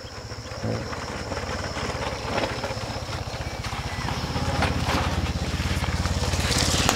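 Motorcycle engine running with a rapid, even beat, growing steadily louder.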